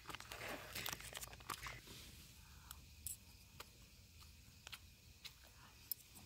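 Plastic and paper wrapping crinkling as it is handled for about two seconds, then a few faint clicks.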